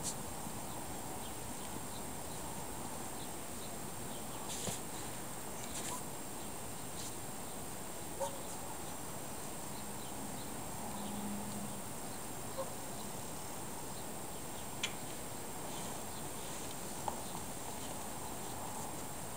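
Steady outdoor background hiss, with a few short light knocks and taps scattered through it as cardboard boxes are carried and loaded into a car's hatch.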